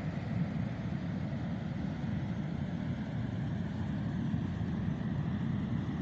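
Wind buffeting the microphone: a steady, flickering low rumble.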